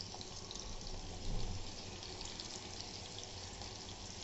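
Marinated chicken pieces frying in hot oil and butter in a non-stick pan over a low gas flame: a steady sizzle with small crackles.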